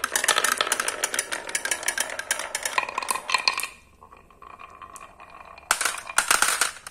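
Green marbles clattering rapidly down a wooden ramp studded with dowel pegs, then rolling more quietly along a wavy groove cut in a wooden block. Near the end they drop off the track with a burst of clicks into a plastic tray of marbles.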